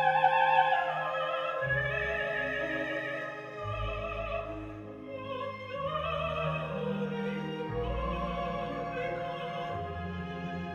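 Operatic singing with orchestral accompaniment, a voice with a strong vibrato over held bass notes that change every couple of seconds, played back as test music through Jensen CS315 three-way loudspeakers.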